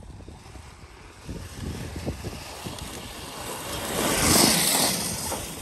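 72-volt electric Razor MX pit bike with an upgrade kit climbing a dirt hill, its rear tyre spinning and throwing up dirt and gravel. The noise builds and is loudest about four seconds in, as the bike passes close by, then eases off.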